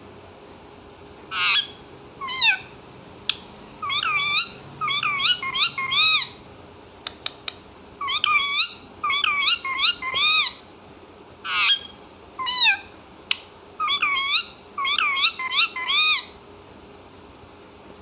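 Parakeet calling: a series of short, shrill calls, each rising then falling in pitch, given in quick clusters of two to five with short pauses between. A few sharp clicks come in the gaps.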